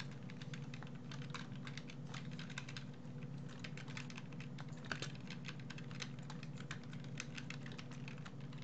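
Typing on a computer keyboard: a quick, uneven run of key clicks over a steady low hum.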